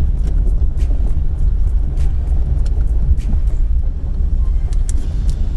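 Car driving along a dirt bush track, heard from inside the cabin: a steady low rumble of engine and tyres, with scattered sharp clicks and knocks.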